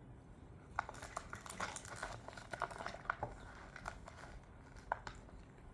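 Plastic snack bag crinkling as it is handled, in irregular sharp crackles, mostly in the first half with one more near the end.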